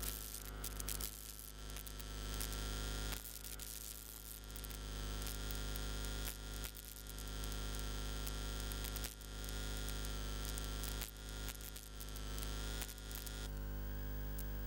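Steady electrical mains hum with static hiss from a microphone and sound-system line, with a few faint crackles.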